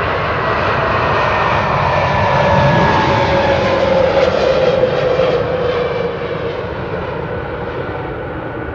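Boeing 747-400 freighter's four turbofan engines running as the jet rolls along the ground. The engine whine swells to its loudest about halfway through, and its pitch falls slowly as the plane goes by.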